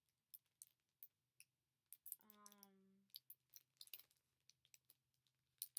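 Faint scattered clicks and taps of two makeup brushes being handled and held against each other, with a short hum from a woman a little past two seconds in.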